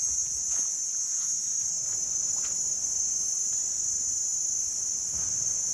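A steady, high-pitched, unbroken drone of a tropical forest insect chorus. A few faint footfalls sound on the trail beneath it.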